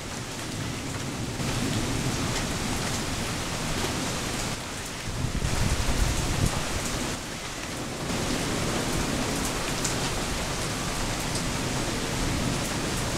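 Heavy rain falling steadily, with a low rumble of thunder that swells and fades about halfway through.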